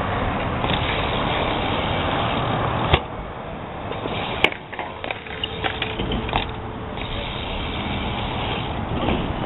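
BMX bike tyres rolling on a concrete bowl with a steady rush. About three seconds in there is a sharp knock, and a sharp click follows about a second and a half later, then a quieter stretch with a few light ticks before the rolling noise returns.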